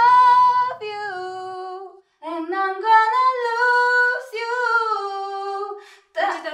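A young woman singing unaccompanied: a few phrases of long held notes, with a short break about two seconds in. She sings without breath support from the diaphragm, which the vocal teacher warns could damage her vocal cords.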